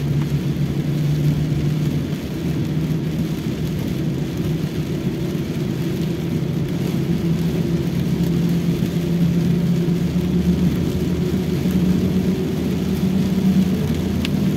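Toyota Rush heard from inside its cabin as it drives through heavy rain: a steady engine hum and road noise, with a hiss of rain and water. The engine note rises slowly as the car picks up speed, and a single short click comes near the end.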